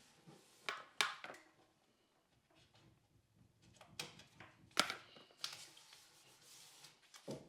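Scattered sharp clicks and light knocks, about six in all, with soft rustling between them: small parts and tools being handled while fitting out a wooden wardrobe. The sound cuts off abruptly at the very end.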